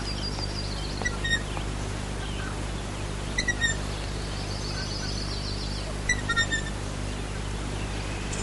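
Birds chirping: a high trill, and short high chirps in little groups of two or three about every two and a half seconds, over a steady low hum.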